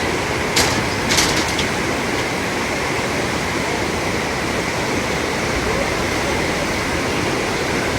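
Raging river: fast-flowing water rushing in a steady, even roar. Two brief sharp clicks come about half a second apart near the start.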